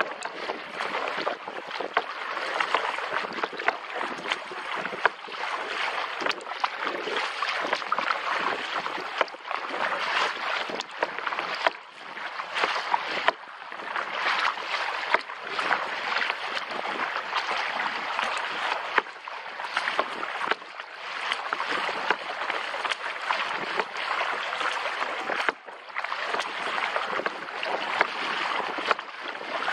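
Water splashing and sloshing around a kayak under way, with frequent short splashes and knocks from the paddling.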